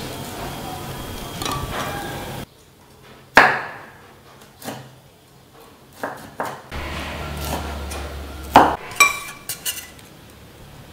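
Glass bowls and dishes knocked and set down on a wooden board: a handful of sharp clinks and knocks, some ringing briefly, the loudest about three and a half seconds in and a quick run of three or four near the end.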